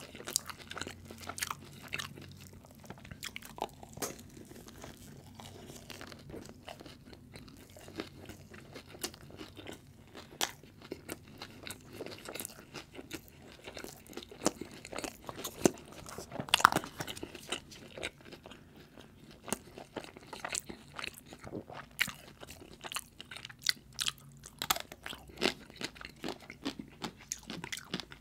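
Close-miked crunching and chewing of crispy fried food, with sharp crunches throughout and the loudest crunch a little past halfway.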